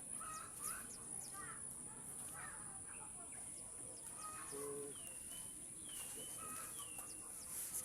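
Small birds chirping and whistling in short calls, with three falling whistles in the second half, over a steady high-pitched drone of insects. A brief low call sounds about midway.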